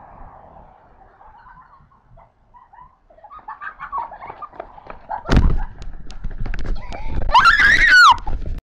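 Children running up shouting, with a loud thump and knocks from the camera being handled about five seconds in. Near the end comes a loud, drawn-out high-pitched yell that rises and then falls, and the sound cuts off suddenly.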